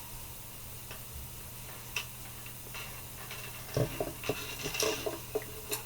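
Small clicks and taps from metal fishing hooks, rings and a jig being handled by hand, sparse at first and then in a quick cluster in the second half, over a low steady hum.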